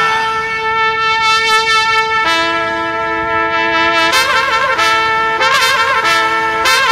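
Music led by a brass section of trumpets. It holds long chords, moving to a new chord about two seconds in, then plays short repeated stabs from about four seconds in.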